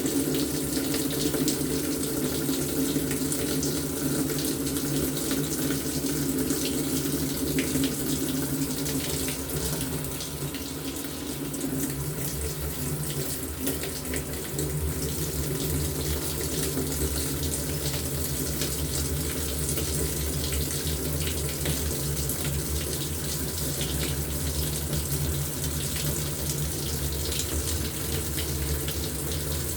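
LG top-loading washing machine with water running steadily into its tub, over a low machine hum.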